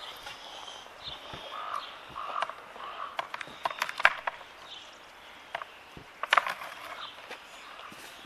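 Scattered sharp clicks and knocks as the plastic bottom track of an above-ground pool is handled and fitted together on the ground, the loudest about four and six seconds in. A few short mid-pitched calls sound in the first few seconds.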